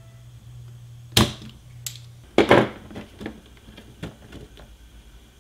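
Sharp clicks and knocks from desoldering work on a circuit board: a spring-loaded desoldering pump snapping as it fires about a second in, then a louder clatter around two and a half seconds in and a few lighter taps after. A low hum stops a little after two seconds.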